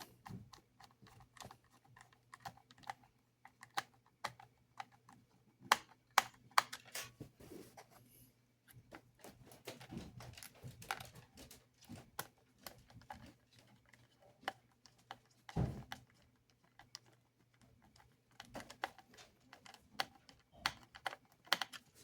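Scattered small clicks and taps of a small screwdriver and plastic model-train parts being handled as screws are driven into a model locomotive's tender shell, with one duller knock about two-thirds of the way through.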